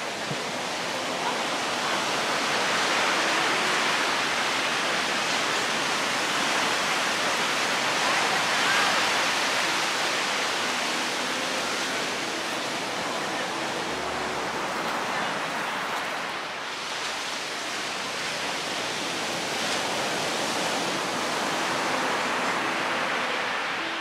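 Ocean surf breaking and washing up a sandy beach: a continuous rush that swells and eases with each set of waves, loudest about a third of the way in, dipping past the middle and rising again near the end.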